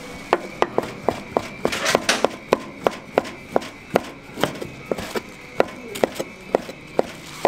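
Knife chopping food on a wooden cutting board: a steady run of sharp knocks, about three a second, with a short scraping swish about two seconds in.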